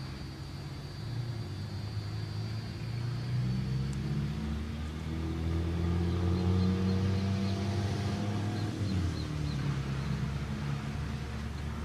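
Diesel locomotive engine running with a low, steady rumble as the freight train slowly approaches, growing louder toward the middle. A car's engine rises and falls as it drives by in the second half.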